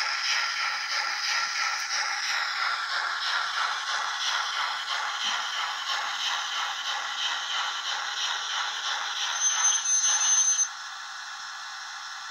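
Sampled steam-locomotive sound from an ESU sound decoder in an H0-scale Rivarossi Württemberg G 12 model, played through its small onboard speaker. It gives a steady rhythm of exhaust chuffs, and near the end there is a high thin squeal for about a second. The chuffing then cuts off suddenly, leaving a steady hiss as the locomotive comes to a stand.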